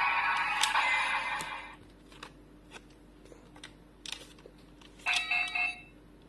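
Electronic sound effect from a DX Kamen Rider toy's speaker, ending about two seconds in. Small plastic clicks from the toy being handled follow, then a short electronic chime around five seconds in.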